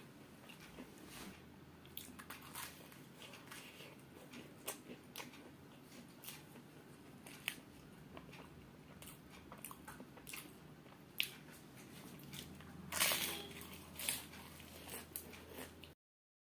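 Close-miked eating of samosas: biting and chewing the fried pastry, with many short crunches and crackles and a louder, longer crackle about thirteen seconds in. The sound cuts out for a moment just before the end.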